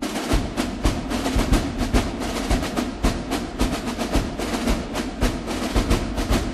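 Background music driven by drums and percussion, with a steady fast beat.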